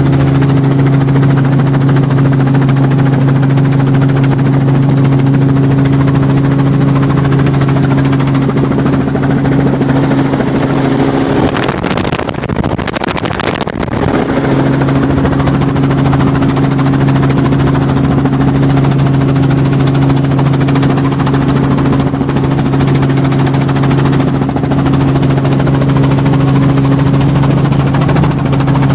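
Robinson R44 Raven II helicopter in flight, heard from inside the cabin: its engine and rotors make a loud, steady drone. About twelve seconds in, a rush of noise covers the drone for about two seconds.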